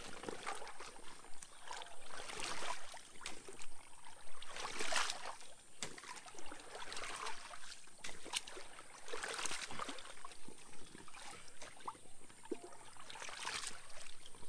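A 5-litre dry bag being pushed and swept through shallow water to fill it: repeated sloshing and splashing swishes about every two seconds, with a few small sharp clicks in between.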